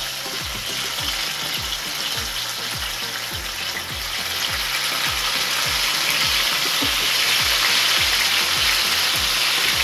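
Chicken shashlik kebab skewers sizzling in hot oil in a frying pan, the sizzle growing louder partway through as more skewers are laid in.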